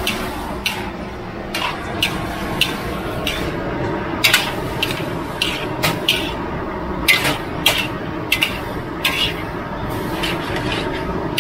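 Metal spatula scraping and clanking irregularly against a large aluminium wok while a broccoli, shrimp and pork stir-fry is tossed, over a steady frying hiss.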